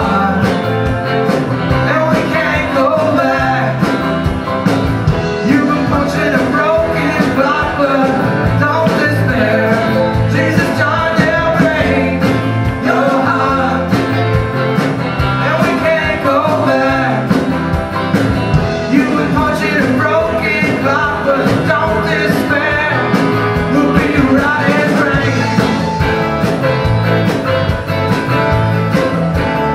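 Live band playing a country-rock song: acoustic and electric guitars, mandolin, bass and drums, with a steady beat.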